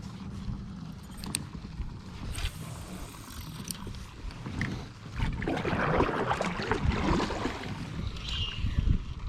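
Water splashing and sloshing around a kayak, with a few sharp knocks early on and a heavier spell of splashing for about three seconds past the middle.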